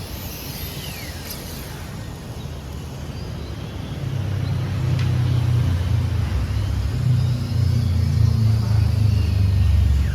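Radio-controlled cars' electric motors whining, the pitch gliding up and down as they speed up and slow down around the track. From about four seconds in, a loud low engine rumble sets in and covers them.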